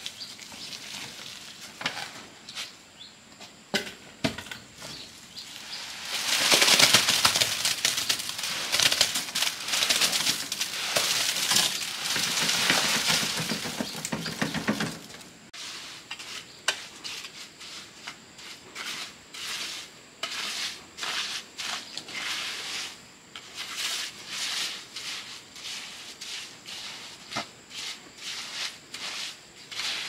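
Hand tools scraping through sand and cement: a long stretch of continuous scraping, then a run of short scraping strokes about one or two a second.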